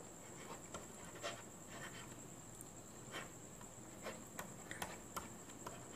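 Faint scattered taps and light scratches of a stylus writing on a drawing tablet, over a steady faint high-pitched whine.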